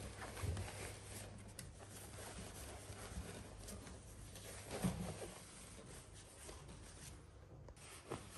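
Faint rustling of denim jeans being handled and straightened on a trouser rack, with a soft knock about five seconds in.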